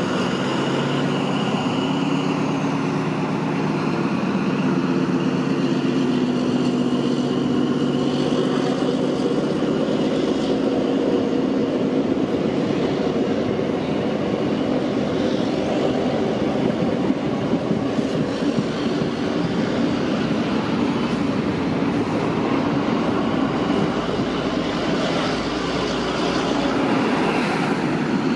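NSW TrainLink XPT diesel passenger train rolling along the platform, its stainless-steel carriages rumbling and clattering on the rails. A steady diesel engine hum fades out over the first ten seconds or so.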